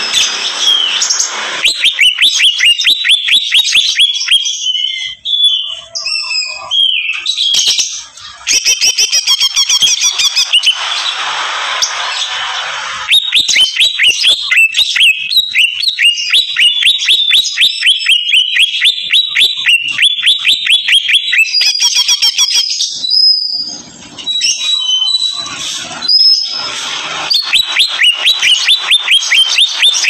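Green leafbird (cucak ijo) singing loudly in long runs of rapid, evenly repeated sharp notes, the staccato 'ngentrok' style, broken by a few short pauses.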